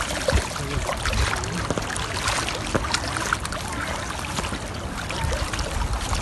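Water splashing and trickling at the water's edge with many small irregular splashes, over a low rumble of wind buffeting the microphone.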